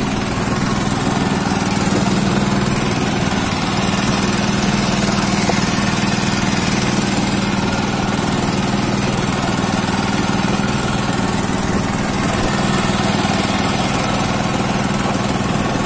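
Small petrol engine driving a hookah diving air compressor, running steadily at a constant speed.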